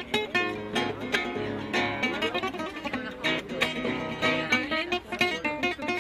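Spanish acoustic guitar played solo in a flamenco style, with quick plucked notes broken by sharp strummed chords.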